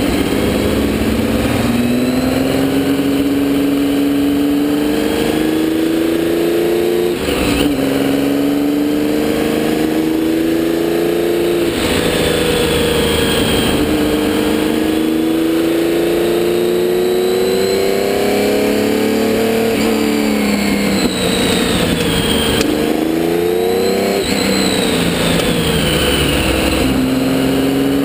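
Porsche 917K race car's air-cooled flat-12 engine heard from on board, pulling hard through the gears. The note climbs in pitch and drops sharply at upshifts about a quarter and nearly halfway in, then falls away and climbs again twice before the end.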